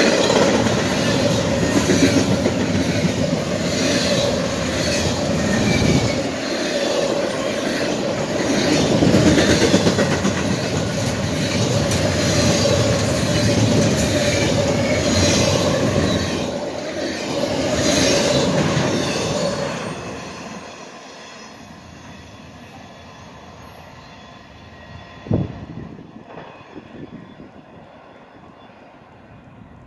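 Double-stack container freight train rolling past close by, its wheels running loud over the rails with a steady ringing tone, then falling away about twenty seconds in as the last cars pass. A brief sharp sound stands out near the end.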